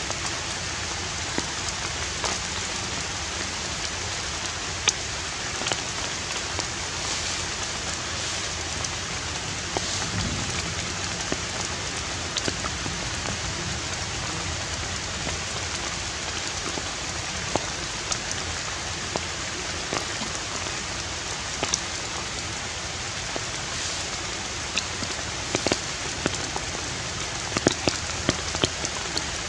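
Steady even hiss with many small sharp ticks scattered through it.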